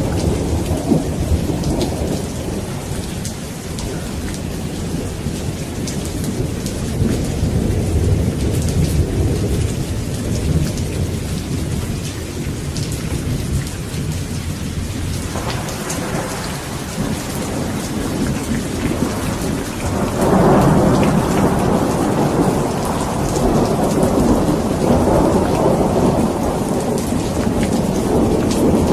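Steady rain falling on a surface with rolling thunder rumbling through a thunderstorm; the thunder swells louder about two-thirds of the way in.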